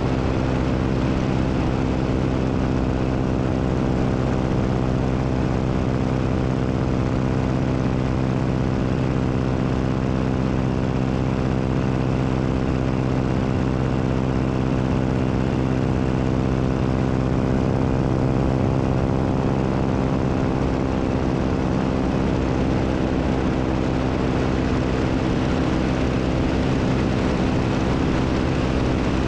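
Biplane's piston engine and propeller running steadily in cruising flight, a constant drone with a hiss of rushing air, heard from a camera mounted out on the wing.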